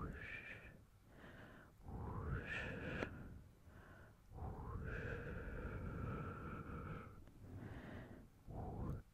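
Slow, breathy exhalations close to the microphone, alternating with quieter inhales. The longest breath out, around the middle, lasts about two and a half seconds.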